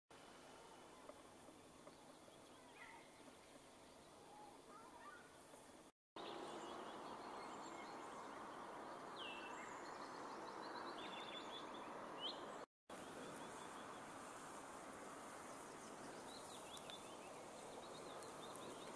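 Faint outdoor ambience: a steady low hiss with small birds giving short, high, falling chirps, most of them in the middle stretch. The sound drops out twice for a moment.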